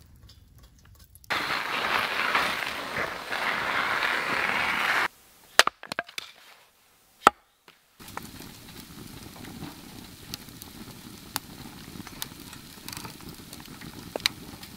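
A string of separate sounds: a steady rushing hiss for about four seconds that stops abruptly, then a few sharp knocks, then a split-wood fire crackling with scattered pops in a small folding titanium stove.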